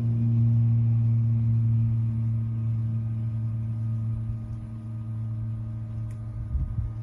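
Steady low hum of a small motor running, easing off slightly toward the end, with a few low thumps near the end.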